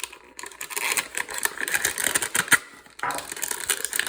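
A knife cutting and prying at a hard plastic hanger box package, giving irregular scraping, cracking and clicking of the plastic, with a short pause near the end.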